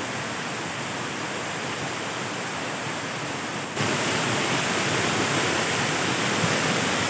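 Waterfall rushing: water pouring down a rock face and splashing, a steady roar that steps up louder about four seconds in.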